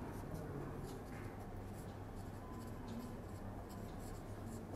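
Marker pen writing on a whiteboard: a run of faint, short scratching strokes, over a low steady hum.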